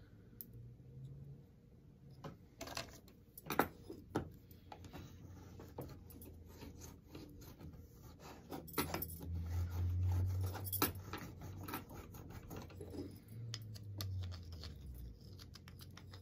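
Copper foil on the edge of a beveled glass piece being burnished with a hand burnishing tool: quiet rubbing and scraping, broken by a few sharp clicks of glass and tool on the wooden tabletop.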